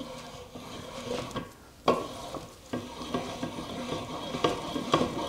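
Steel milling vice being handled: metal parts scraping and rasping against each other as the jaw and screw are worked, with a few sharp metallic clicks.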